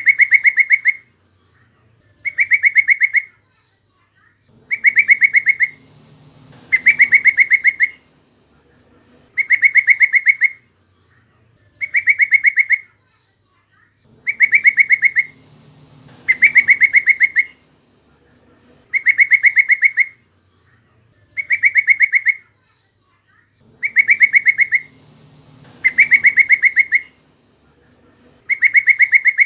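Yellow-vented bulbul (trucukan) calling: a loud, rapid chattering phrase about a second long, repeated regularly every two seconds or so.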